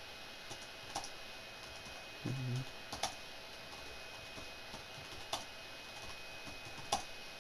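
Typing on a computer keyboard: quiet, irregular key clicks, with a few sharper clicks standing out. A short low hum sounds about two seconds in.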